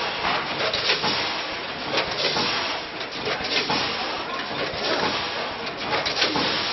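Multihead combination weigher running on a granule packing line: a dense, steady rushing noise of vibrating feed pans moving rice snack granules, with irregular clicks and clatter from the hoppers.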